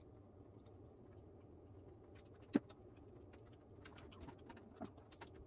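Quiet eating sounds: faint mouth clicks from chewing, with one sharp click about halfway through and a run of small clicks near the end.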